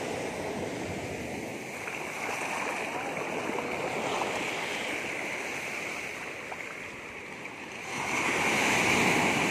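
Sea surf washing up on a sandy beach, a steady rushing hiss of breaking waves and foam that grows louder near the end as another wave breaks.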